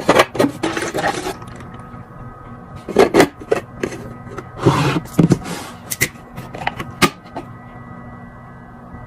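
Restocking a fridge: items and containers set down and slid onto shelves, a run of sharp clicks and knocks with two longer scraping rustles, about a second in and near the middle, over a faint steady hum.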